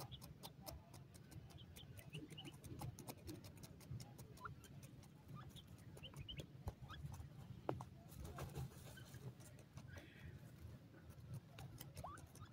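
Faint, short soft chirps from a huddled group of grey francolins, over a steady run of small dry clicks and a low hum.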